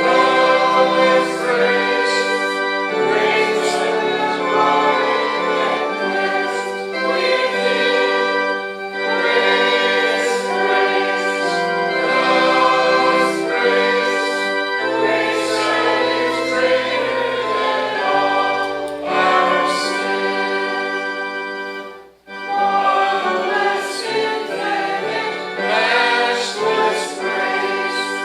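A hymn sung by voices with instrumental accompaniment, in long held notes that change every second or two. The music dips almost to nothing for a moment about 22 seconds in, then carries on.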